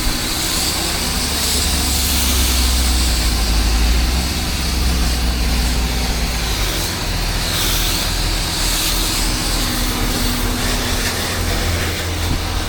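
Pressure washer engine running steadily under a continuous hiss of high-pressure water spray rinsing the house with fresh water.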